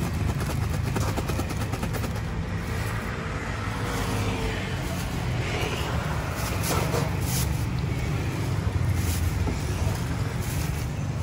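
A steady low engine hum runs throughout. Thin plastic bags crinkle as fruit is bagged, most around six to seven seconds in.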